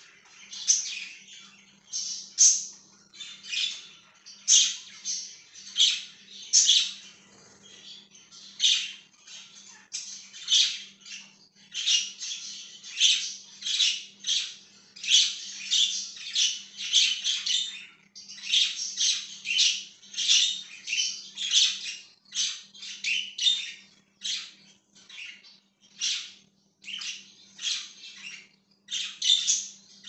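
A flock of budgerigars (budgies) chirping and chattering in quick, overlapping calls that keep coming with only brief gaps. A faint steady low hum runs underneath.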